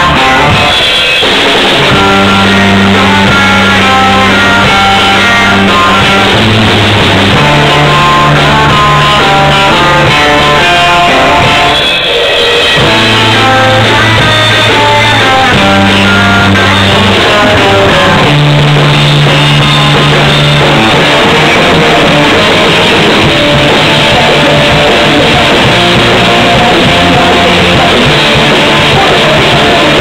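Rock band playing loud: electric guitars, bass guitar and drum kit, with held bass notes changing every couple of seconds and a brief drop in the playing about twelve seconds in.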